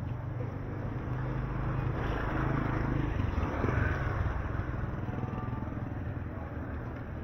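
A motorcycle engine passing by on the street, growing louder to a peak about three to four seconds in, then fading away.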